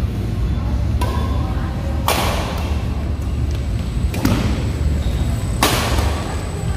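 Badminton rackets striking a shuttlecock during a doubles rally: four sharp cracks, about one every one to two seconds, the first softer, each followed by a short echo off the hall walls, over a steady low hum.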